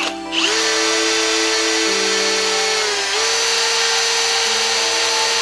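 An electric drill runs steadily as its bit bores into the end of a bench grinder's spinning steel axle, with both motors going at once. The drill starts just under half a second in, and its pitch dips briefly about three seconds in, then recovers.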